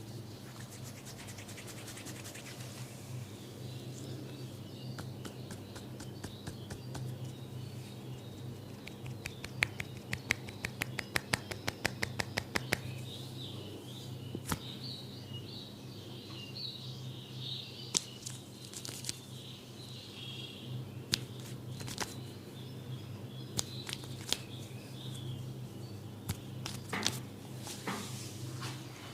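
Hand strokes of a barber's head and shoulder massage: scattered sharp slaps and clicks, with a quick run of rhythmic tapping, about five strokes a second, for three seconds near the middle. A steady low hum runs underneath, and high chirps come in the middle.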